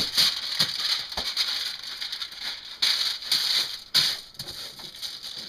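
Aluminium foil crinkling as it is pressed and folded by hand over a baking sheet to form a cookie pan, in irregular bursts, loudest near the start and around three and four seconds in.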